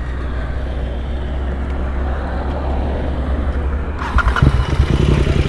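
Royal Enfield Continental GT 650's 648 cc parallel-twin engine idling through an aftermarket Gursewak exhaust, a steady low rumble. About four seconds in it gets louder, with a distinct, even putter.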